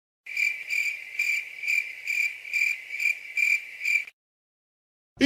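Crickets-chirping sound effect, the classic awkward-silence gag: a high chirp pulsing evenly about twice a second for nearly four seconds, starting and stopping abruptly.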